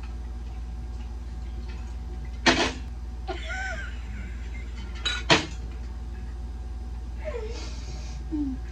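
Dishes and utensils knocking during a meal: one sharp knock about two and a half seconds in and two more in quick succession a little past five seconds, over a steady low hum.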